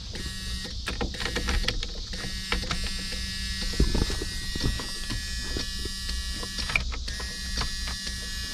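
An electrical warning buzzer in a 1991 Jeep Cherokee buzzing steadily, with clicks and knocks from the key and dashboard controls being worked.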